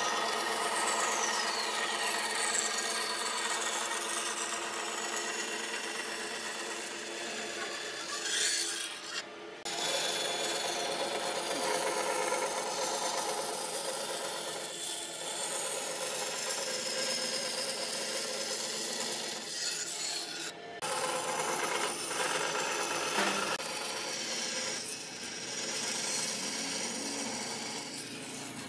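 Band saw running and cutting curves through a thick reddish hardwood beam, a steady rasping cut over the whine of the machine. The sound breaks off for a moment twice.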